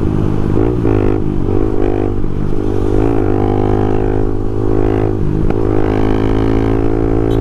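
Honda Twister 250's single-cylinder four-stroke engine running at steady road speed, its exhaust note dipping and recovering a few times as the throttle is eased and reopened.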